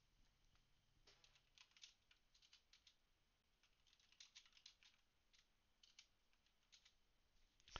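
Near silence with faint, irregular clicks of typing on a computer keyboard, in a few short runs.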